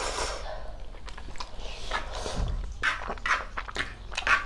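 Spicy instant noodles being slurped and chewed by two people eating, with a longer slurp at the start and short, scattered mouth and fork sounds after it.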